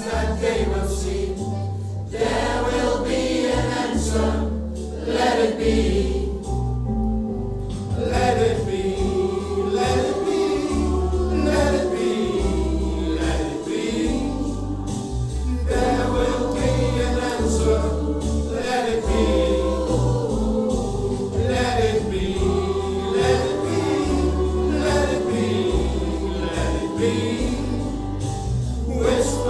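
Music: a choir singing over an accompaniment with a low bass line moving in steady steps.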